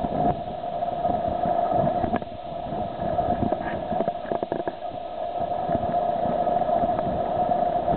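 Floodwater rushing steadily down the New River wash, with uneven low gusts of wind buffeting the microphone and a few faint clicks about halfway through.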